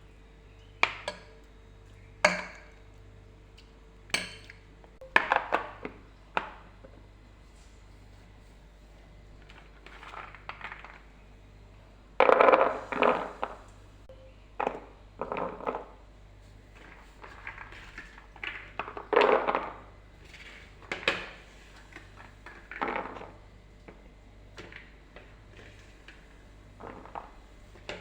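Dishes and utensils being handled in a kitchen: irregular clinks and knocks, some ringing briefly, with a busier stretch of clatter around the middle. A faint steady hum is heard for the first few seconds.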